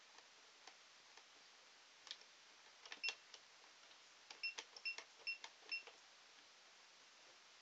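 Plastic clicks and taps of a baby pressing the buttons on a toy electronic keyboard, followed about four and a half seconds in by a quick run of about six short, high electronic beeps from the toy.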